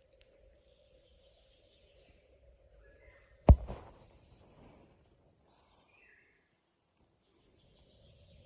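Quiet background with a few faint bird chirps and one sharp knock about three and a half seconds in.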